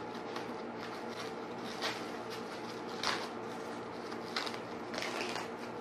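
Soft rustling and handling noise as white wrapping is worked off a bag strap by hand, a few brief crinkles over a steady low hum.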